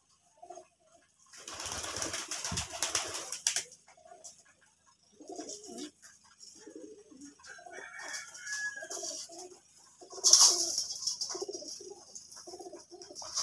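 A flock of domestic pigeons cooing, with many short low coos overlapping. Two loud flurries of flapping wings break in, one about a second and a half in lasting some two seconds, and a shorter one about ten seconds in.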